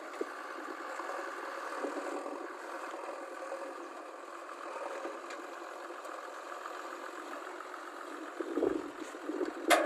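Diesel engine of a heavy construction machine running steadily at a low, idling pace. A sharp click comes near the end.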